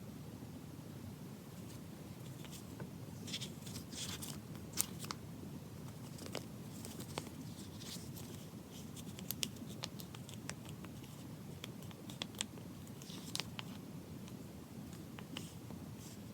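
Small handling noises of a leather-covered mini notebook and paper: scattered light clicks and taps with a few short rustles, over a low room hum.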